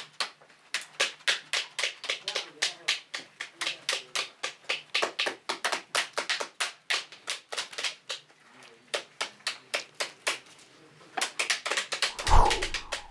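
Knives cutting and cracking the rinds of pomegranates by hand, several people at once: quick, sharp clicks about three or four a second, with a short lull about eight seconds in. A brief, louder sound near the end.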